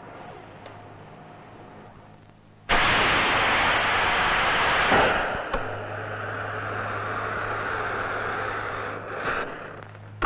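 Small firework rocket motor lighting with a sudden loud hiss about three seconds in, rushing for several seconds before dying away near the end. From about halfway a steady low mains hum from the electromagnetic levitation track joins it.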